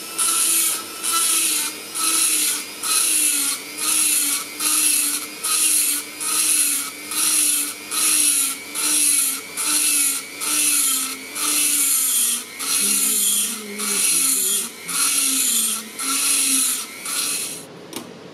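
Hand ratchet wrench being worked back and forth on the bolts of a Subaru EJ20 engine block, a rasping ratchet stroke about once a second, about twenty in a row, stopping shortly before the end.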